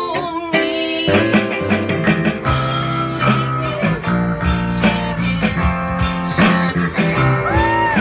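A band playing an instrumental passage between sung lines: guitars over a steady bass line, with one note bent up and back down near the end.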